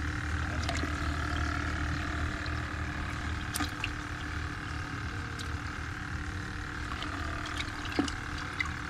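Battery aerator running in a live-bait bucket, its air pump giving a steady hum and its tube bubbling the water. A few small clicks and splashes come as a hand moves among the live shrimp, the clearest near the end.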